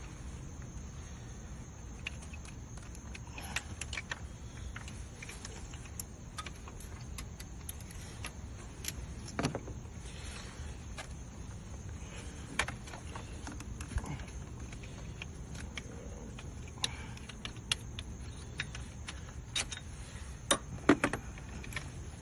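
Hand tools clicking and clinking against metal parts in an engine bay, scattered irregular taps while the drive belt is being worked loose. A cluster of sharper clicks comes near the end, over a steady low rumble.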